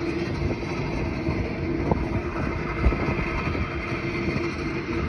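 Railway track maintenance machinery running steadily, a mechanical drone with a held tone, with a couple of sharp knocks about two and three seconds in.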